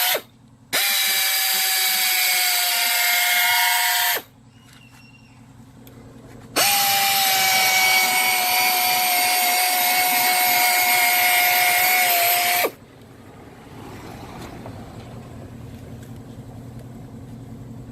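An electric power tool working a car headlight lens during restoration. It runs twice, for about three seconds and then about six seconds, with a steady high whine that falls slightly in pitch during each run.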